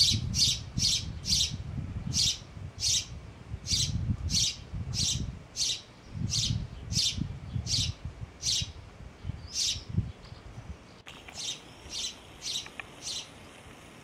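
A male house sparrow chirping, one short note repeated about twice a second over a low rumble. After a short break about ten seconds in, a few quicker, fainter chirps follow.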